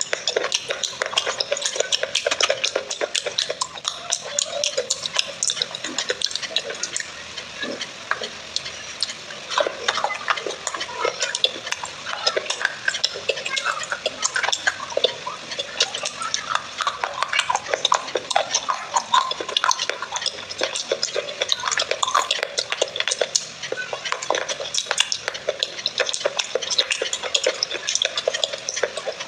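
Fingers squeezing and mashing soaked clay-pot pieces in a bowl of muddy water close to a clip-on mic: a constant stream of wet squelches and small crackles.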